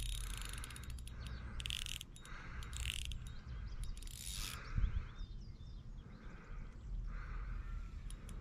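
Fishing reel giving line in three short clicking bursts as a fish runs off with the bait before the hookset. Birds chirp faintly.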